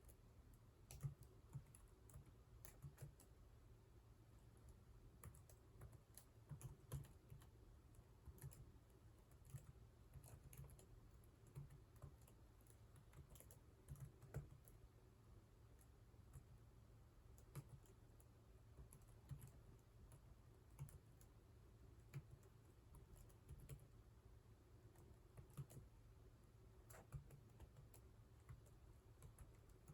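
Faint computer keyboard typing: uneven, irregular keystrokes of a touch-typing practice drill.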